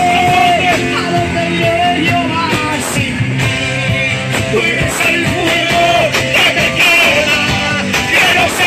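Loud, continuous amplified Christian worship music, with singing into a microphone over a full musical backing.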